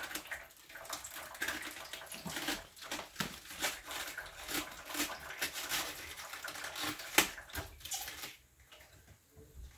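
Water running and splashing, with irregular quick handling noises, as something is washed by hand; it stops about eight seconds in.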